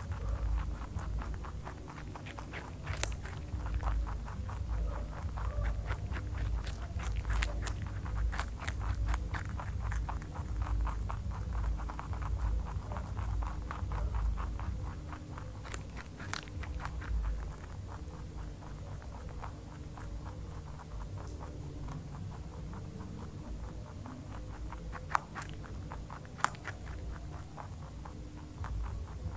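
Rabbit chewing raw carrot and cabbage: quick runs of small crisp crunches, densest through the first half and thinning later, with a few sharper clicks near the end, over a low steady hum.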